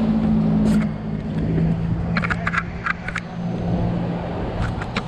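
Steady low engine hum throughout, with a few short sharp clicks: one early, a quick cluster about two seconds in, and another cluster near the end.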